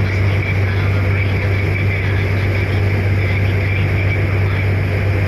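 Boat engine running steadily, a deep even hum that holds the same pitch throughout, under a constant wash of noise.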